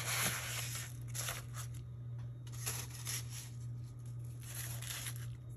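Crisp, flaky phyllo pastry of a cheese byrek crackling and tearing by hand in several short irregular bursts, over a low steady hum.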